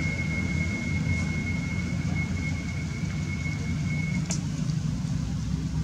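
Steady low rumble, like a running engine or passing traffic, with a thin steady high whine that stops about four seconds in, followed by a single sharp click.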